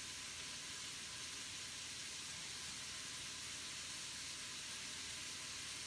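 Bacon, vegetables and seasonings sautéing in an Instant Pot's inner pot on sauté mode, a faint steady sizzling hiss.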